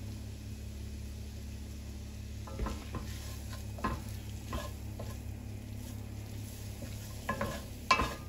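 Chopped chicken and onion sizzling in fat in an enamelled pan while a wooden spatula stirs and scrapes it. A handful of short scrapes come from about two and a half seconds in, the loudest near the end, over a steady low hum.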